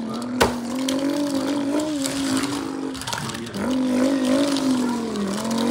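A person's voice making a long, steady vocal engine noise, imitating a car while pushing toy cars across a table. It comes as two held hums, the second wavering and dipping in pitch near the end. A small sharp click about half a second in.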